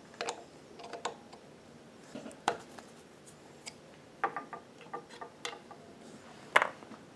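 Irregular metallic clicks and clinks from an industrial sewing machine's needle-bar and presser-bar mechanism being moved slowly by hand, about a dozen in all, some with a brief ring, the loudest a little before the end.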